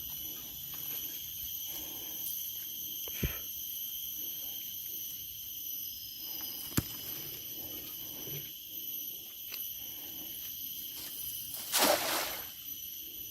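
Steady high-pitched insect chorus droning in several layered tones, with two sharp clicks and a short, loud rushing noise near the end.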